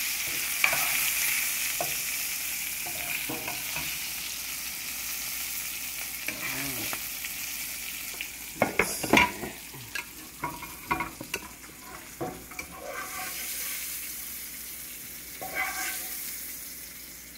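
Hot oil sizzling on the stove as seared Brussels sprouts are lifted out of a skillet with tongs and a slotted spoon into a glass dish, with clinks and scrapes of metal utensils on the pan, the sharpest about nine seconds in. The sizzle fades gradually.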